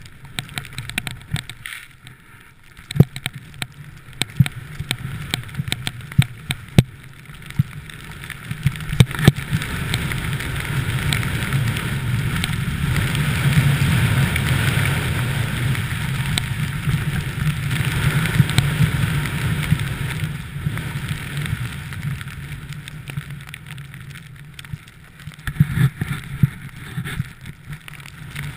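Snowboard riding through fresh powder, with wind rushing over the camera: a steady rush of board and snow noise that swells to its loudest in the middle. Scattered sharp knocks come mostly in the first ten seconds and again near the end.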